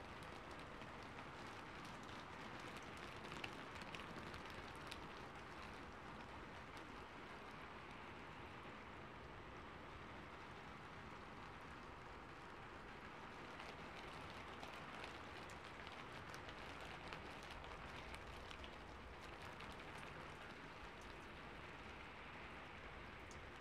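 Calm rain as a faint, steady hiss, with light drops ticking here and there.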